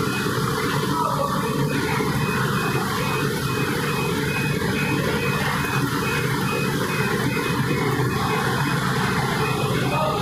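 Popcorn production line running steadily: a rotating stainless-steel drum tumbling popped popcorn, over the even hum of its drive motor, with a faint high tone throughout.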